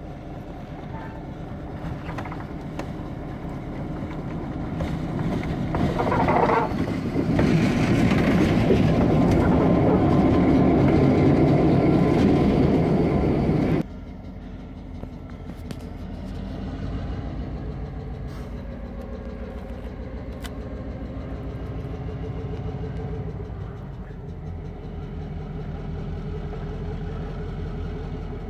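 EMD F3A diesel locomotive's 567 engine running as the unit moves at low speed, growing steadily louder as it draws close. A little before halfway the sound drops suddenly to a quieter, more distant run of the same engine.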